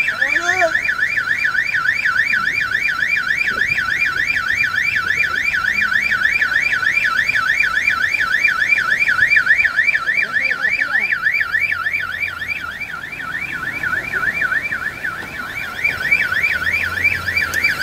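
Car alarm sounding a fast warbling tone that sweeps up and down several times a second without a break.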